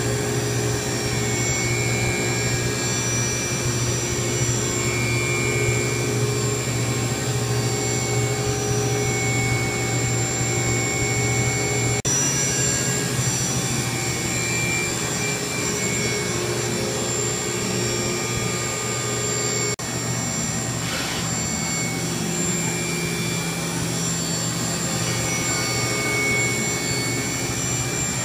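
Haas VF-5/40 CNC vertical mill running under power: a steady mechanical whir with several constant high tones, its character shifting slightly twice.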